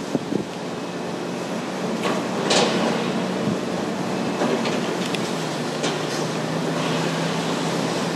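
Hydraulic excavator and other site machinery running steadily with a low engine hum while the excavator's bucket digs into wet soil and sludge. A louder scraping rush comes about two and a half seconds in, followed by a few light knocks.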